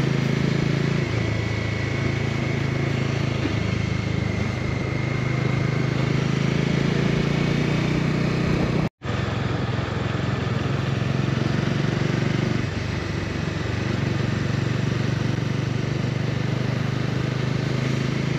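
Motorcycle engine running steadily on the move, with wind and road noise; the engine note shifts a little in pitch a couple of times. The sound cuts out for an instant about halfway through.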